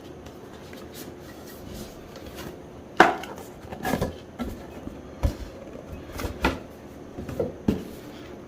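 Cardboard product packaging being handled and opened: a string of sharp knocks and taps, the first and loudest about three seconds in, the rest spread over the next five seconds.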